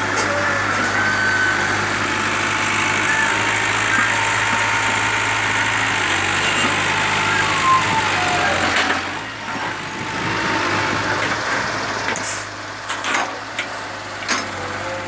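Backhoe loader's diesel engine running steadily, easing to a lower level about nine seconds in.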